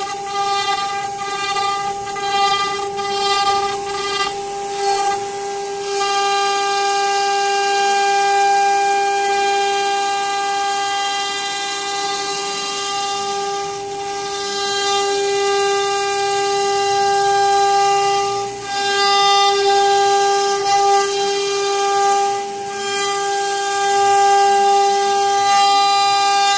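CNC router spindle whining steadily at high speed while a V-bit carves a pattern into a wooden door panel, with the hiss of the cut rising and falling as the tool moves.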